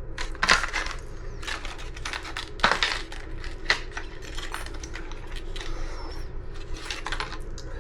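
New disc brake pads and small hardware being handled: a run of clicks and light clinks, with sharper knocks about half a second, two and a half and three and a half seconds in.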